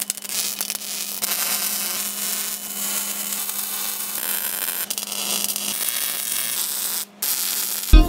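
Wire-feed welder crackling and sizzling as it lays a bead on steel plate, over a steady electrical hum. Music cuts in at the very end.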